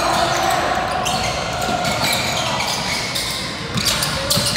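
Basketball game sounds in a gym: a ball bouncing on the court amid the murmur of players' and spectators' voices, echoing in the large hall.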